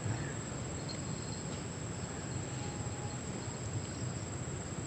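Insects trilling in a steady, high-pitched continuous drone over a low outdoor background hiss.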